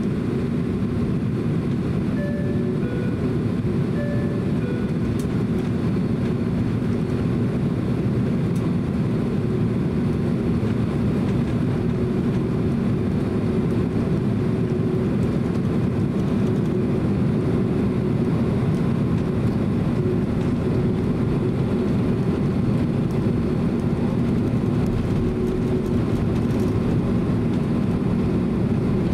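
Steady cabin drone of a Boeing 767-300 taxiing, its engines at low taxi power, heard inside the cabin. A faint two-note high-low chime sounds twice, about two and four seconds in.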